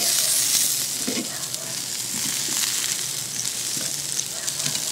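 Turkey wings sizzling on a hot cast iron grill grate over charcoal as they are turned with metal tongs: a steady high hiss with a few faint clicks from the tongs.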